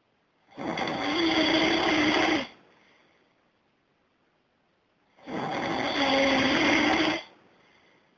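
A man snoring loudly: two long snores of about two seconds each, some four and a half seconds apart, each with a rattling flutter and a steady hum, with quiet pauses between.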